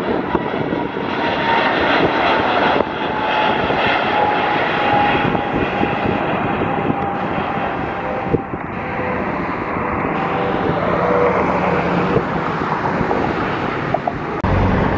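Jet engines of an Airbus A320neo at climb power just after takeoff. A broad rushing sound carries a steady whine that slowly drops in pitch as the jet flies away.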